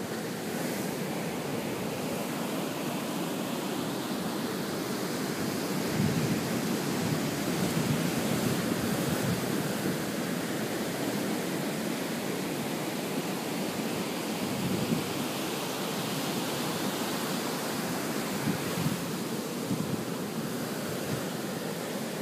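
Ocean surf breaking and washing up a sandy beach, a steady rushing noise that swells louder for a few seconds partway through.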